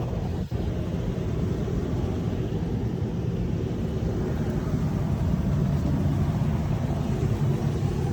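Forced-air furnace blower running, with a steady low rush of air moving through the ductwork; the airflow is freed up after a long-forgotten filter was found and pulled.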